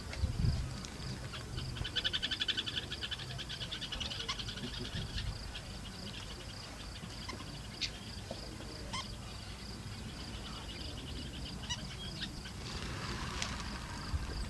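Wildlife ambience: a steady, high, pulsing insect chirring throughout, joined about two seconds in by a rapid, evenly pulsed trilling animal call that lasts about three seconds. Faint scattered clicks and a low rumble underneath.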